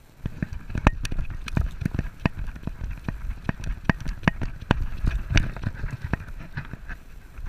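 A dog running hard over sandy ground, heard from a harness-mounted action camera on its back: rapid, irregular thumps and knocks from its footfalls jolting the camera, over a low wind rumble. The running starts a moment in.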